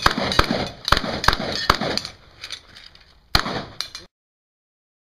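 Shotgun fired in a fast string, about five shots in the first two seconds, then two more after a short pause. The sound cuts off abruptly about four seconds in.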